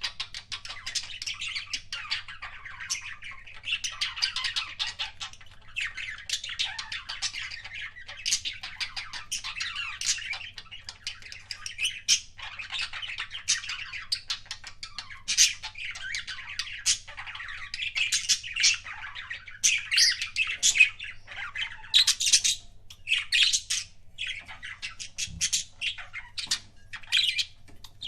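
Budgerigars chattering and warbling without pause, a busy stream of chirps and squawks with louder sharp calls in the second half.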